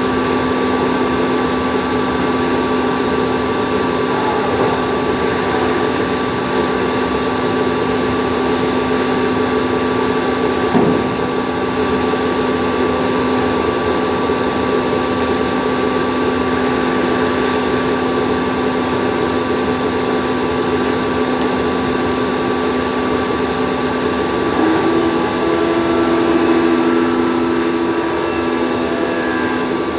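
CNC drilling machine running: a steady motor hum over a constant hiss, with a brief knock about 11 seconds in and a second, higher hum joining about three-quarters of the way through.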